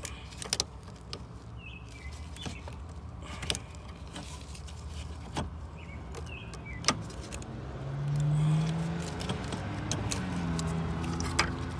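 Scattered clicks and taps of pliers working on fuel-line fittings and plastic clips in an engine bay. A low steady hum swells up about eight seconds in and again near the end.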